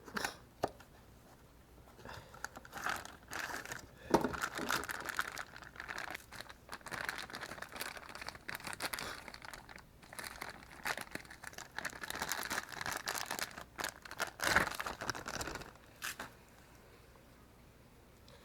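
Crinkling and rustling, as of packaging being handled and torn, with many small sharp clicks, from about two seconds in until shortly before the end.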